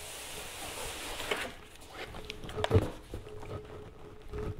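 Cardboard retail box being slid out of its cardboard shipping carton: a scraping, rubbing hiss of cardboard on cardboard, then a few knocks, the loudest a dull thump a little under three seconds in as the box is set down.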